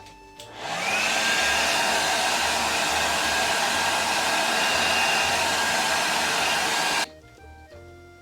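Hand-held hair dryer switched on, its motor whine rising as it spins up, then blowing steadily and loudly before cutting off suddenly near the end.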